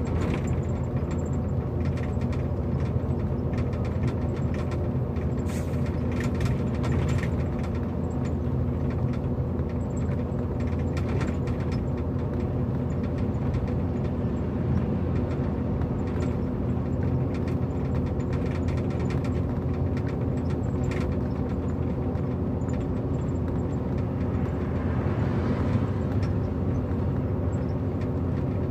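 Steady drone of a heavy truck rolling at highway speed, heard from inside the cab: engine hum and road noise, with a few small rattles and clicks.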